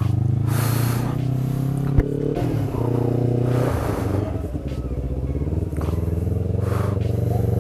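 Sport motorcycle engine running at low road speed, its note shifting with the throttle around the middle. There is a sharp click about two seconds in and a few brief rushes of hiss.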